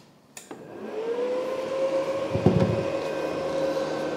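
A click as the Multipro Expert 160A inverter welding machine is switched on, then its cooling fan spins up: a hum that rises in pitch and levels off into a steady whir with air hiss. A single knock about two and a half seconds in.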